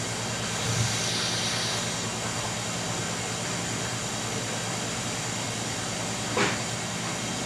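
Commercial kitchen exhaust hood fan running steadily, with a low hum under the noise. A brief hiss comes about a second in, and a single knock about six seconds in.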